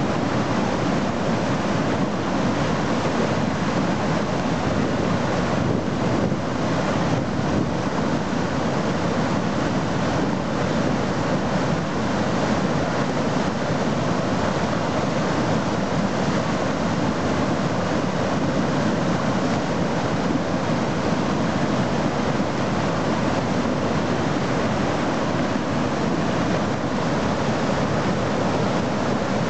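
A river in flood rushing steadily through whitewater rapids, a constant rush of water with no breaks.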